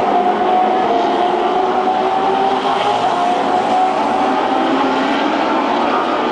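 Race car engines running at speed around the circuit, a steady loud drone of several cars with one engine note slowly falling in pitch.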